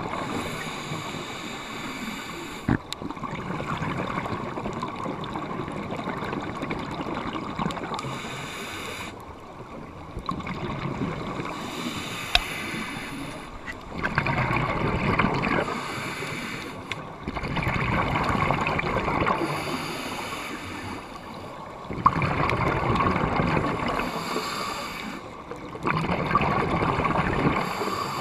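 Scuba diver breathing through a regulator underwater: bursts of exhaled bubbles every few seconds, with quieter gaps between breaths, and a few sharp clicks.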